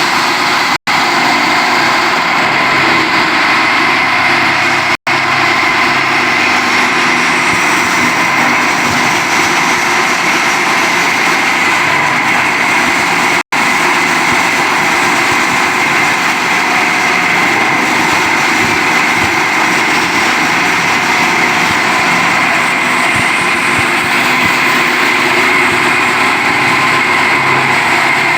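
PET bottle grinder (plastic granulator) running loud and steady: a dense rush of noise with a steady high whine, cutting out for an instant three times.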